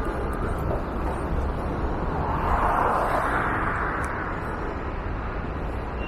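Steady wind noise on the microphone and street traffic heard from a moving e-scooter, with a passing vehicle that swells and fades a little past the middle.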